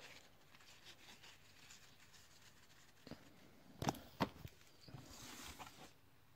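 Faint handling of trading cards: a stack of cards is set down on a wooden table with two light taps about four seconds in, followed by a soft rustle.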